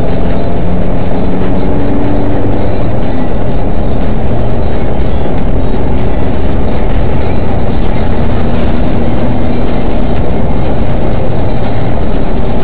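Loud, steady road and engine noise inside the cabin of a moving car, picked up by a dashcam microphone.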